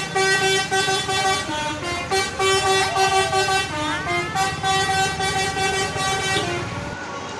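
Bus telolet horn (a Basuri multi-tone air horn) playing a stepping tune of several notes, over the bus engine running. The horn stops about six and a half seconds in, leaving the engine.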